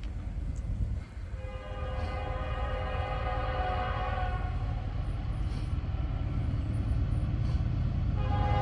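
Norfolk Southern diesel locomotive's multi-note horn sounding one long blast of about three seconds, then, after a pause of about three and a half seconds, a second long blast starting near the end: the opening of the horn signal for a grade crossing as the train approaches. A steady low rumble runs underneath.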